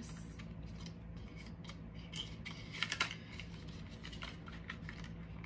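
Small irregular clicks and crinkles of plastic and cardboard packaging being handled: a clear plastic false-eyelash tray being worked out of its box.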